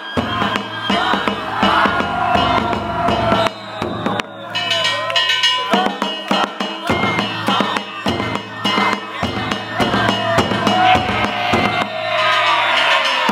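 Danjiri float music: a taiko drum struck rapidly and steadily with sticks, with clanging hand gongs, and a shinobue bamboo flute playing a wavering melody over it. The beat pauses briefly about four seconds in.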